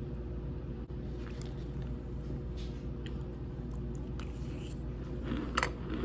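Cold cornstarch being bitten and chewed: scattered squeaky crunches, the loudest about five and a half seconds in. A steady low hum runs underneath.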